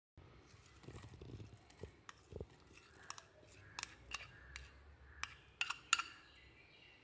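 Plastic spoon scraping fried onions from a glass bowl into a steel mixer-grinder jar, with a run of light, sharp clicks of the spoon against the bowl and jar in the second half.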